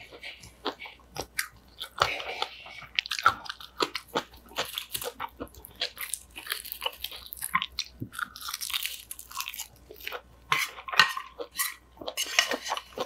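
A person chewing a mouthful of crunchy cucumber bibimbap made with fresh cucumber salad and pickled cucumber, many irregular crisp crunches.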